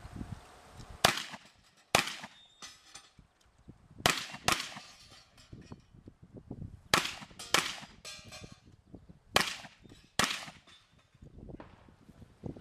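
Shotgun fired about eight times in quick pairs, with pauses of about two seconds between pairs, as targets are engaged on a shooting stage.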